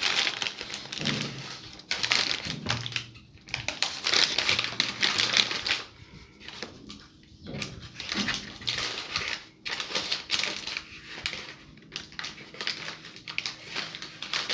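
Brown paper crinkling and rustling in irregular bursts as it is folded and pressed around the mouth of a jar and tied down with string.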